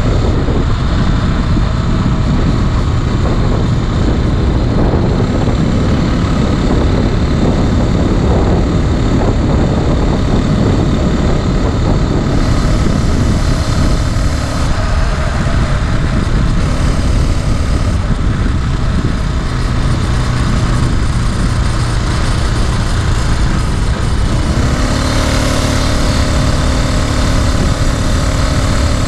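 A 49cc four-stroke motorized bicycle engine running under way while it is being broken in, with heavy wind rush on the microphone. About 25 seconds in, the engine note turns steadier and clearer.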